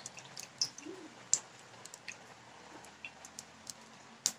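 Oil and ghee heating in a cooking pot, giving faint scattered crackles and ticks a few times a second, with a slightly louder pop about a second in and another near the end.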